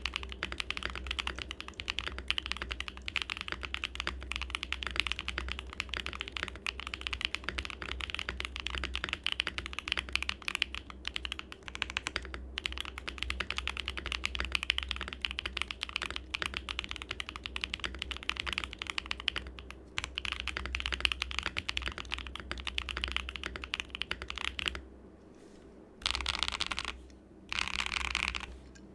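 Mode Sonnet mechanical keyboard with BSUN Hutt tactile switches and GMK Botanical keycaps, typed on quickly and continuously. Near the end the typing stops, and after a short pause the modifier keys are pressed in a few short runs.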